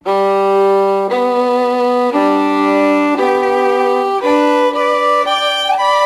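Background music: a violin playing a slow melody of long held notes, about one a second, moving to quicker notes near the end.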